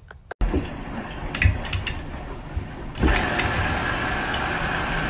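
Front-loading washing machine running, a steady mechanical drone that sets in about halfway through; before it, a shorter noisy stretch with a few clicks.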